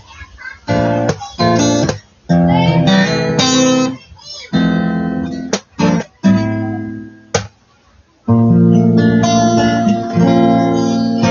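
Acoustic guitar strummed in short runs of chords with brief breaks, and a pause of about a second past the middle before a longer run of strumming.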